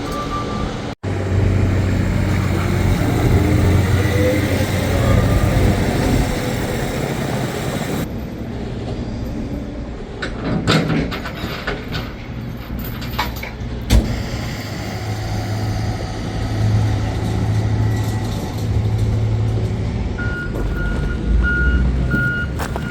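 A vehicle engine running steadily, with a reversing alarm beeping in short repeated tones near the end. A single sharp knock about two-thirds of the way through.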